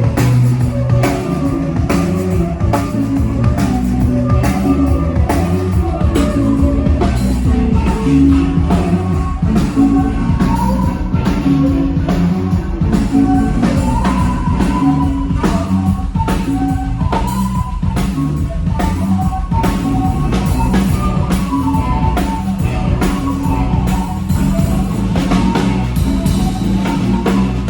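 Rock band playing during a sound check: a drum kit keeping a steady beat under guitar.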